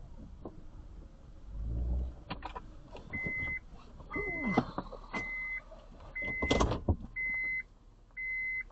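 A car's electronic warning chime beeping six times, about once a second, each beep about half a second long, with knocks and clunks from inside the vehicle, the loudest of them between the beeps.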